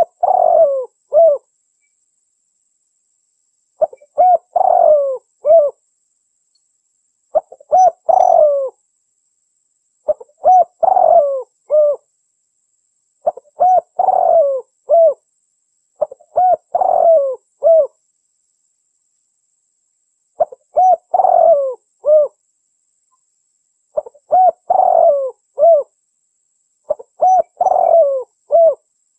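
Spotted dove (tekukur) lure call: a repeated cooing phrase of several short coos, each phrase lasting about a second and a half and coming back roughly every three seconds, with silence in between.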